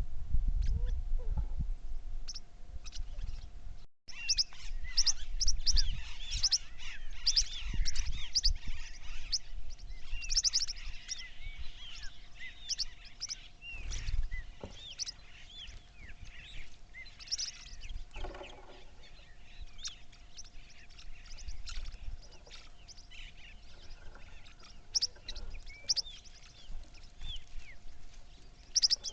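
Many small birds chirping and twittering together, short high calls overlapping throughout, over a faint steady hum. The sound cuts out briefly about four seconds in.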